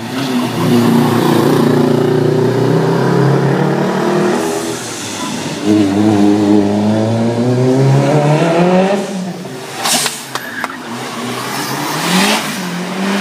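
Race car engines running through a tight street corner. One engine revs with its pitch climbing steadily for a few seconds, then drops off about two-thirds of the way through. A short, sharp burst of noise follows.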